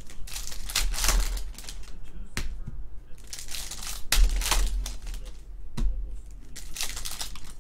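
Foil trading-card pack wrappers crinkling and tearing as packs are handled and ripped open, in several bursts of rustling, with a sharp click about two and a half seconds in.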